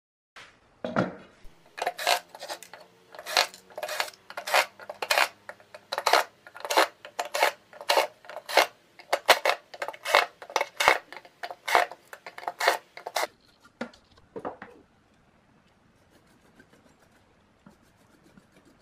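Repeated sharp metallic clinks and clatters, one or two a second, of small metal parts knocking together. They stop about thirteen seconds in, leaving faint scratching from a small brush scrubbing an amplifier circuit board.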